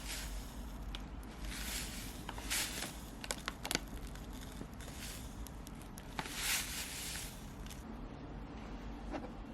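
Several short rustles of things being handled, with a quick run of light clicks about three to four seconds in.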